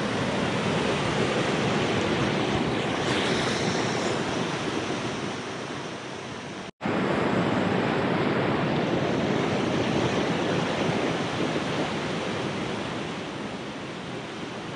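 Mountain river rushing over boulders in a steady whitewater rush. It cuts out sharply for an instant about seven seconds in, then carries on.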